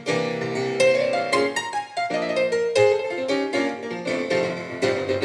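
Grand piano played solo: a busy stream of struck chords and melody notes, each ringing and decaying.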